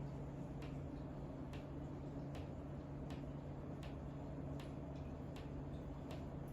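Faint ticking knocks from above, coming at a steady rhythm of about one every 0.8 seconds, over a steady low hum. The source is unknown; the rhythm is regular enough that it is suspected to come from inside the space between the floors rather than from people upstairs.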